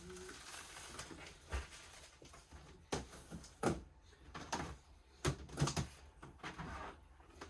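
Hard plastic storage containers being handled: irregular clacks and knocks of plastic on plastic and on a table, several sharp ones from about three seconds in.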